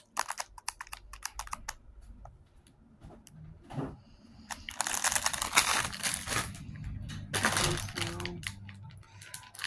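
Clear plastic wrapper on a sleeve of round butter crackers being handled: quick light clicks of fingertips tapping and pressing the plastic at first, then a couple of longer bursts of plastic crinkling about halfway through and near the end.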